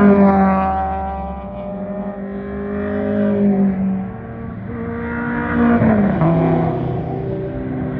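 Several cars' engines passing at speed on a race track straight. One passes close about six seconds in, and its engine note drops in pitch as it goes by.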